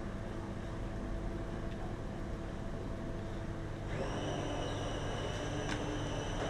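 Steady machine hum with a low drone, joined about four seconds in by a steady high-pitched whine.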